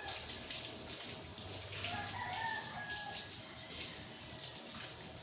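A rooster crowing once, about two seconds in, over a steady hiss of running water.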